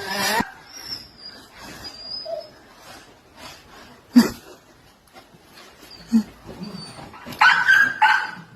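A dog whining, in short scattered sounds with thin high tones, and a louder pitched cry near the end; a sharp knock about four seconds in.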